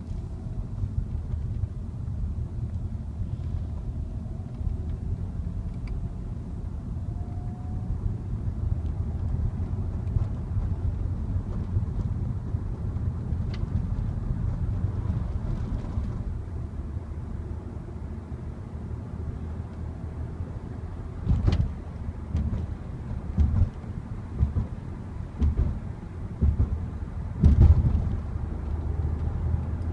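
Volkswagen Passat R36's 3.6-litre VR6 engine and road noise at a steady cruise: a low, even drone. A few brief low thumps come in the second half.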